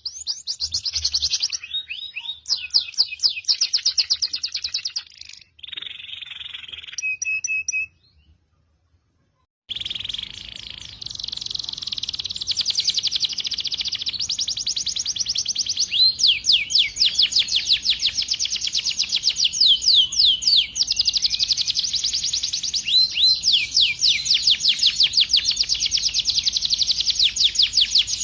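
Songbird song from a cage-bird tutoring recording: fast trills of repeated down-sweeping whistles and short chirps. It breaks off for under two seconds about eight seconds in, then resumes as a dense, continuous trill.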